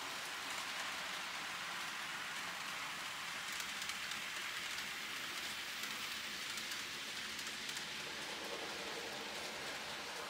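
N gauge model Class 43 HST train running along the track: a steady hissing rattle of small wheels on rail, with a few light clicks around the middle.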